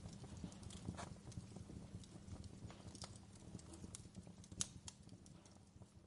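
Faint background ambience: scattered soft clicks and knocks over a low steady hum, slowly fading out.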